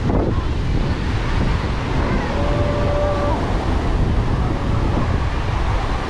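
Surf breaking along the shore, with wind buffeting the microphone as a steady low rumble. A faint, brief, steady tone sounds for about a second midway through.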